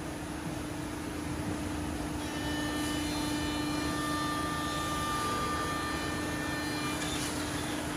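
Woodmaster WM-1625RS5 CNC router's spindle running at a steady pitch over a wood panel, with a steady hiss beneath it. A higher whine joins in from about two and a half seconds to about seven seconds.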